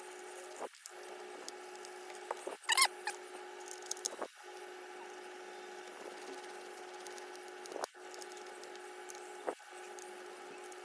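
Small clicks and taps of a hand screwdriver driving screws into soft RPM plastic nerf bars on an RC truck chassis, with a brief squeak about three seconds in, over a steady hum.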